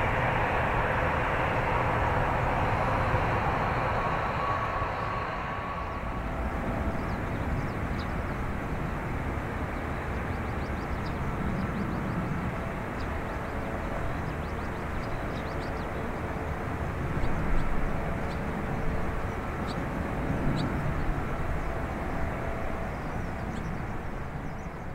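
Rolls-Royce Trent 1000 turbofans of a Boeing 787-8 climbing away after takeoff: a steady jet rumble that slowly fades.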